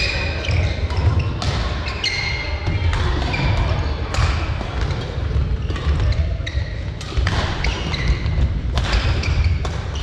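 Badminton doubles rally in a sports hall: rackets smacking the shuttlecock every second or so, sneakers squeaking on the court floor and footsteps, all echoing in the hall.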